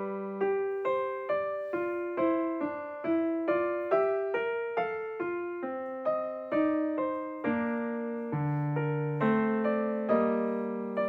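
Solo piano music: a steady run of single struck notes over low chords, about two notes a second, each note fading after it is struck.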